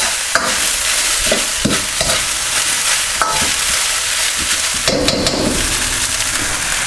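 Rice sizzling in a hot wok as a metal ladle stirs, pushes and scrapes it around the pan, with a continuous hiss and scattered clicks of the ladle against the wok. There is a longer scrape about five seconds in.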